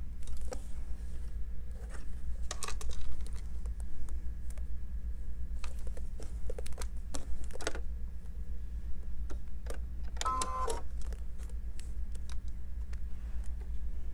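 Sewing machine in use: irregular clicks and taps over a steady low hum, with a short electronic beep about ten seconds in.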